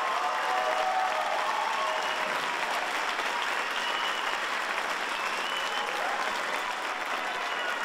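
Theatre audience applauding steadily, easing off slightly toward the end.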